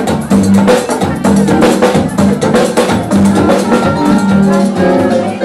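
Live band music: quick percussion and drum hits over a repeating pattern of low notes.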